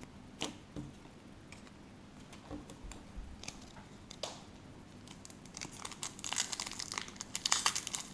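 A foil trading-card pack being torn open and crinkled by hand: a few faint rustles at first, then from about halfway dense crinkling and tearing of the foil wrapper, growing louder toward the end.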